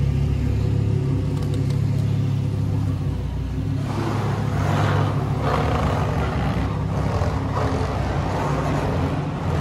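Lamborghini Huracán Performante's 5.2-litre naturally aspirated V10 running at a low, steady idle as the car creeps slowly across a showroom floor. From about four seconds in, a rougher, hissier noise is layered over the engine rumble.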